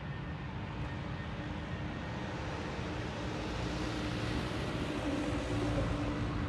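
Jet airliner's engines at takeoff power as it starts its takeoff roll: a steady rumble with a faint hum, growing gradually louder.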